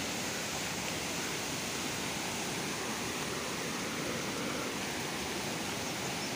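Steady rushing noise of fast-flowing water, a stream running high after heavy rain.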